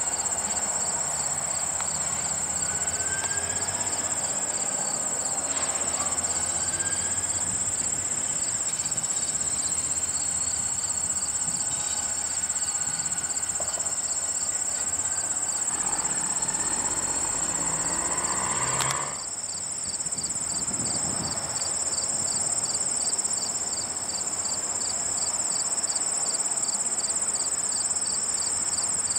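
Insects chirping in a steady, high-pitched drone, with a second, pulsing trill under it. Beneath them is the low rumble of diesel locomotives idling and moving slowly in a rail yard, which drops away suddenly a little past the middle.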